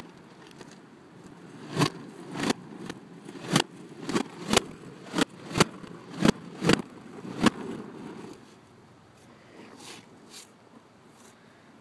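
A series of about a dozen sharp knocks, roughly two a second, over a low rumble, dying away about two-thirds of the way through.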